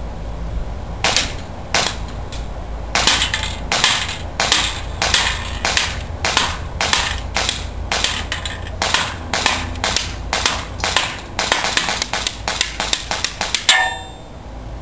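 Tokyo Marui Sig P226 gas blowback airsoft pistol, run on green gas, firing a long rapid string of about thirty sharp cracks at an aluminum plate target, two to three a second, some coming in quick pairs. The last crack near the end leaves a brief metallic ring.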